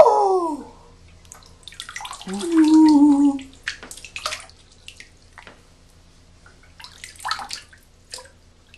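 A hand swishing and squelching through water-soaked Orbeez beads in a filled bathtub, making scattered short splashes and wet clicks. Two louder short pitched squeals stand out, the first at the very start gliding down in pitch and the second about two and a half seconds in.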